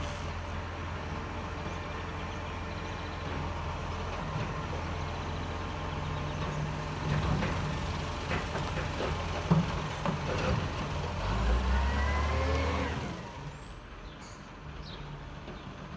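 Side-loader garbage truck's engine running while its arm lifts and tips a wheelie bin: a series of clunks and knocks, the sharpest about halfway through, then a rising whine. Near the end the sound drops to a quieter, more distant engine.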